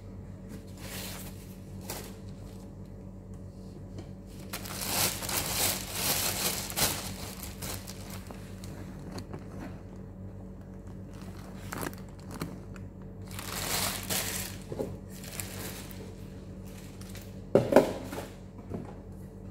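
Plastic bread bag crinkling as it is handled, in two spells of rustling. A sharp knock comes about two seconds before the end. A steady low hum runs underneath.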